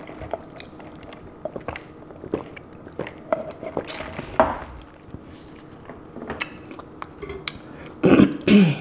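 Close-up eating sounds: sipping soda through a straw, chewing, and small clicks and rustles as a paper cup is set down and a soft taco is handled on a plate. A short voiced sound, louder than the rest, comes near the end.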